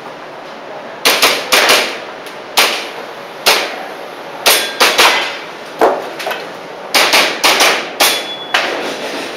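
Airsoft pistol firing a string of shots, often in quick pairs, about a dozen in all, starting about a second in, each a sharp crack with a short metallic ring.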